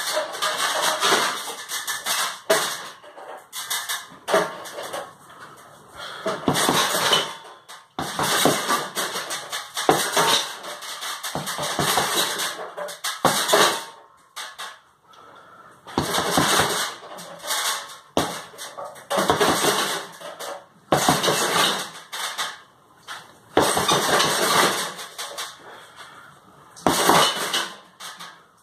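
Gloved fists striking a hanging heavy punching bag in irregular flurries, each burst of hits lasting about a second with short pauses between.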